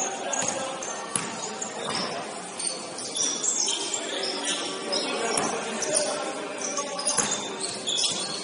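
Basketball game sounds: sneakers squeaking on the court, sharp knocks from the ball bouncing, and indistinct voices of players.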